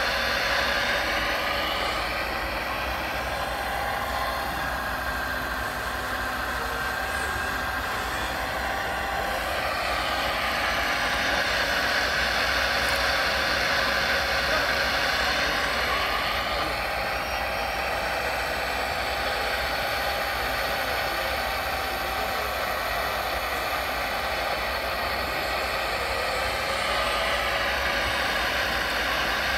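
Radio-controlled model excavator running, a steady mechanical drone with a whine whose pitch shifts up and down a few times as the arm and bucket work.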